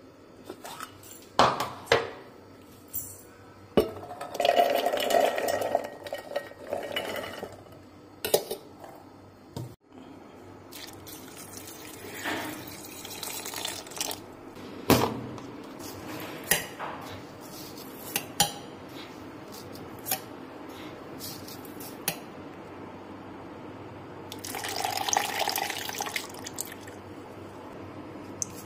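Kitchen handling sounds: scattered clinks and knocks of a mixer-jar lid and a glass bowl, with two stretches of pouring liquid, one about four seconds in and one near the end.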